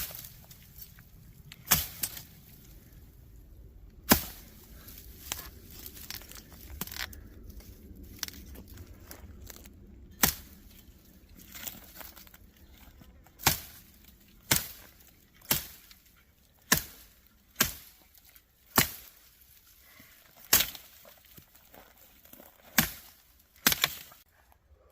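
Machete chopping, about a dozen sharp strikes: a few seconds apart at first, then about one a second from halfway on.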